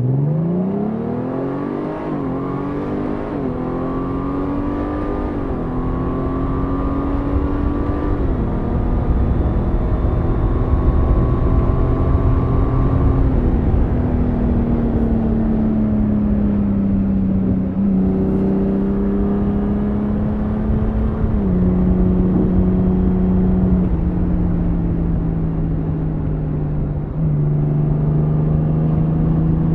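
A 2024 Honda Gold Wing's flat-six engine under hard acceleration from a standstill in sport mode. The engine note climbs through each gear and drops back at each upshift: several quick shifts in the first dozen seconds, then longer pulls at higher speed.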